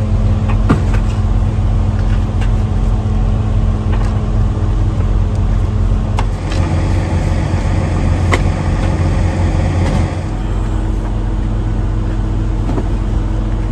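Steady low hum of idling diesel truck engines, its pitch shifting a couple of times, with a few sharp knocks and clunks as belongings are handled at an open car.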